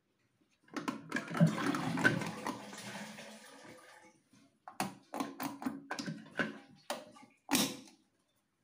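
Water splashing and sloshing in a toilet cistern for a few seconds, fading away, then a quick string of sharp plastic clicks and knocks as the fill valve's cap is twisted loose.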